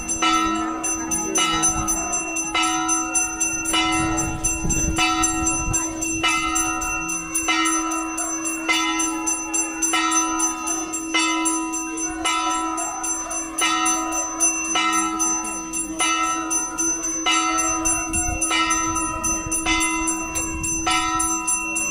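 Temple bell struck over and over at an even pace, about three strokes every two seconds, each stroke ringing on into the next, over a steady low hum.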